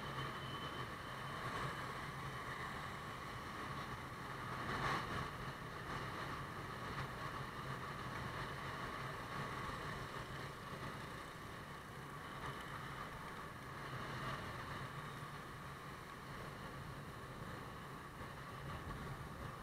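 Motorbike riding along: a steady low engine hum under wind and road noise, with a brief louder swell about five seconds in.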